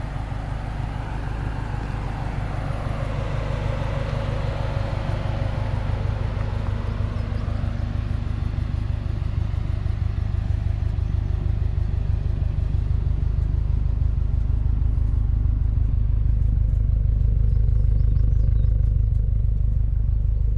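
2007 Subaru WRX STI's turbocharged flat-four, with a catless downpipe and HKS cat-back exhaust, running with a steady low rumble, heard from inside the car. It grows gradually louder toward the end.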